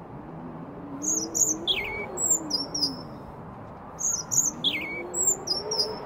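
A small songbird whistling two short, chirping song phrases, each a run of quick high notes with a falling slur, separated by a pause of about a second.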